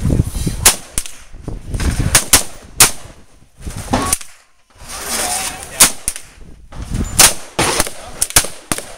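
AR-15 semi-automatic rifle firing 5.56 mm rounds in a string of irregularly spaced shots, sometimes two or three close together, with short pauses between.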